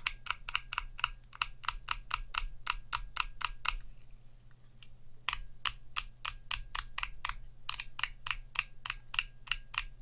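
Resin artisan keycap on a black switch in a small switch tester, flicked over and over with a finger: a fast run of sharp plastic clicks, about three or four a second, a pause of about a second and a half midway, then another run. It is a flick test of how snugly the cap sits on the switch stem, and the cap holds.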